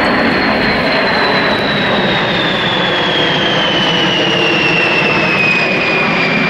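B-52 Stratofortress bomber flying past with its eight jet engines running: a loud, steady rush of jet noise with a high whine that falls gradually in pitch as it passes.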